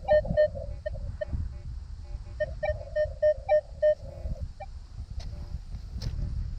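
Minelab Equinox 800 metal detector sounding a string of short mid-pitched target beeps as the coil sweeps back and forth over a target that reads about 18 to 20. The beeps come in two runs and stop about four and a half seconds in, over a low rumble of wind and handling.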